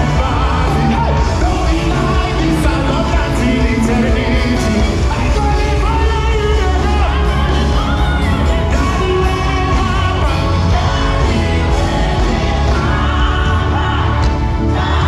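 Live gospel worship music through a hall PA: a male lead singer with backing vocalists over a full band of drums, bass and guitars, loud and continuous.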